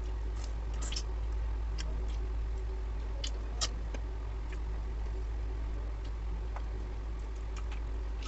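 Eating rice and curry by hand: scattered soft clicks and smacks from fingers working food on a steel plate and from chewing, at irregular intervals, with the sharpest about three and a half seconds in. A steady low hum runs underneath.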